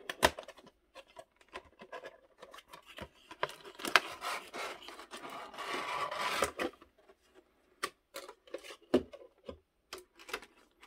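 A knife sawing and scraping through an action figure's cardboard and plastic packaging, with sharp clicks and crackles of plastic being handled; the scraping is densest in the middle.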